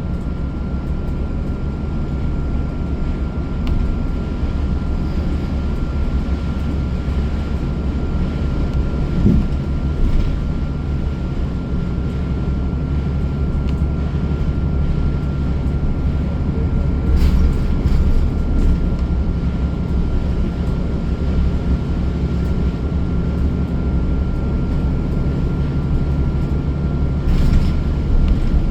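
Interior of a moving transit bus: steady engine and road drone with a thin steady whine above it, broken by a few brief rattles, around the middle and again near the end.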